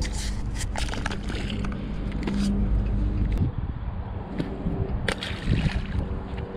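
Scattered knocks and scrapes of a freshly landed shad flopping on a boat deck while the line and jig are handled, over a steady low hum. The knocks cluster near the start and again about five seconds in.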